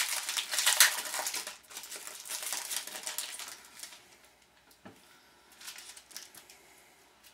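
Hockey card pack wrapper crinkling and tearing as it is opened by hand, a dense crackle for about three and a half seconds. It then fades to quiet card handling with one small click near five seconds.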